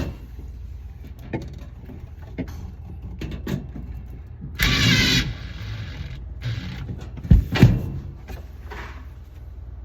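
Handling noises from work on a refrigerator: scattered clicks and knocks, a half-second rasping noise about five seconds in, and two loud thumps in quick succession a little later, over a steady low hum.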